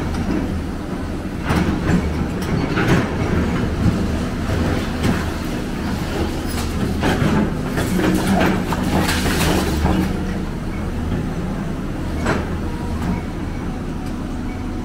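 Heavy diesel construction machinery running steadily, with irregular metallic clanks and rattles over the engine note.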